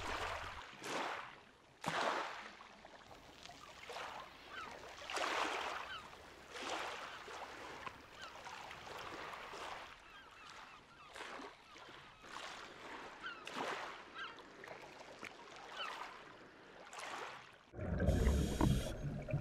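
Small waves washing gently on a rocky shore in soft swells every second or two, with faint bird calls over them. Near the end the sound changes to underwater: a low rumble and hiss of a scuba diver's regulator and bubbles.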